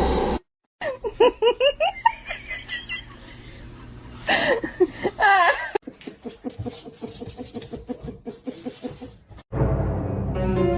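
Bursts of rapid, pitched laughter, coming in two runs, with fainter quick pulses after; music starts about a second before the end.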